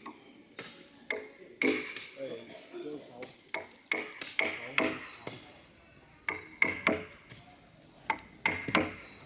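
Irregular sharp knocks of a long-handled chisel striking into a hewn log beam, one or two a second with pauses, each with a short ring.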